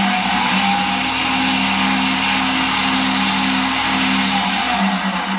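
Shopsmith driven by a converted treadmill motor, speeding up from about 2,000 to nearly 4,000 RPM on its variable-speed control with a rising whine and steady whir, then starting to slow near the end.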